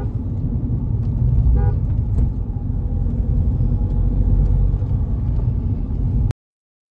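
Steady low rumble of a Mahindra XUV500 on the move, engine and road noise together, cutting off abruptly about six seconds in.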